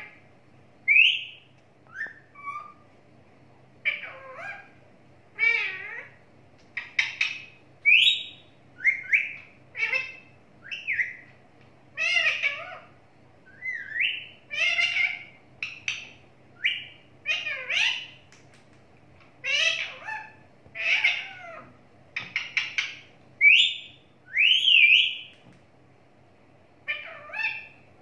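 Rose-ringed parakeet calling: a long run of short chirps, squawks and whistled notes, many of them rising in pitch, about one a second with brief pauses between.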